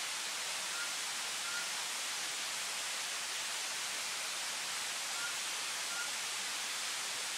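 Steady, even hiss of a forest at night, with two pairs of short, faint high chirps, about a second in and again about five seconds in.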